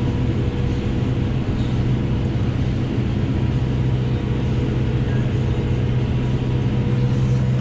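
Kubota M7-171 tractor's diesel engine running steadily under load, heard from inside the cab: an even low drone with a faint steady whine above it.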